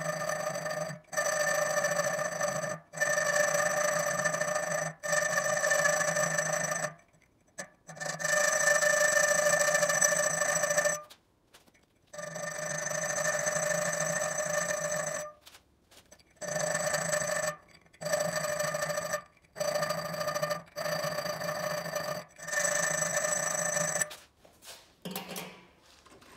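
A small electric power tool runs with a steady whine in about a dozen bursts of one to three seconds, switched on and off repeatedly while cleaning rust off the worm screw of an old adjustable wrench.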